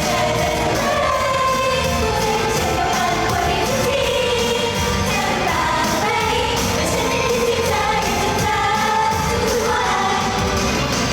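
Pop song with female singing over a full backing track.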